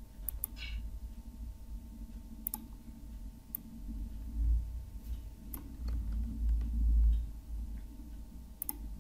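A few scattered computer mouse clicks, short and sharp, spaced irregularly over a low background rumble and a faint steady hum.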